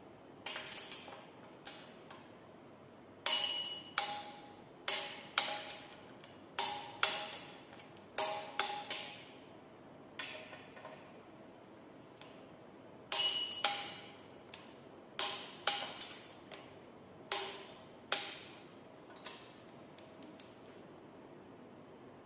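Tohnichi FHW click-type torque wrench with a ratchet head working bolts on a steel plate: sharp metallic clicks come in irregular clusters of one to several, each ringing briefly.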